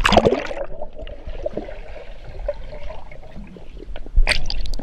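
Water sloshing and gurgling close to the microphone, with a loud splash right at the start and another about four seconds in.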